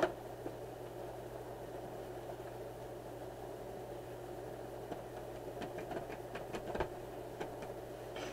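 Scissors cutting at the seal of a graphics-card box: a sharp click at the start, then a run of small snips, clicks and scrapes in the last few seconds. Under it all is a steady low hum.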